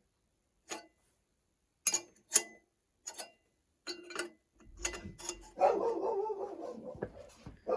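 Sharp metallic clicks and taps from handling small steel pieces, a few with a short ring. About two thirds of the way through comes a second or so of scraping, then one more click near the end.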